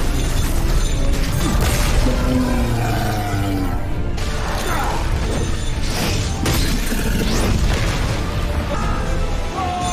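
Animated fight-scene soundtrack: music under rattling chain-whip and metal sound effects, with several sharp impacts in the second half.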